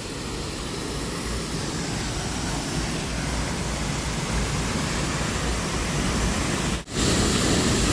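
Steady rushing roar of a waterfall. About a second before the end it drops out for an instant and comes back louder and brighter.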